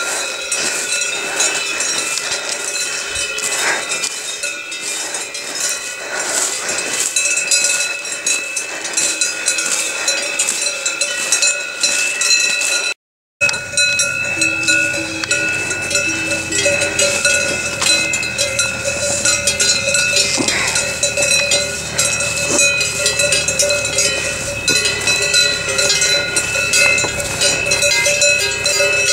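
Many cowbells on the necks of a grazing herd of cows, ringing and clanking together in a continuous, overlapping jangle. The sound cuts out for a moment about halfway through, then goes on.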